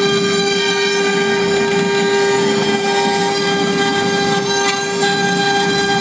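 CNC wood router spindle running with a steady high whine while its small carving bit mills a relief icon into a wooden panel, the rasp of the cut under the whine. The level dips briefly once, a little before the end.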